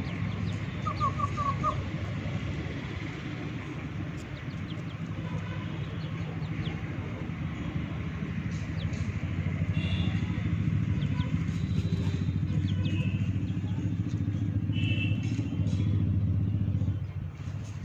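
A steady low motor hum that drops off suddenly near the end, with a short run of faint high chirps about a second in.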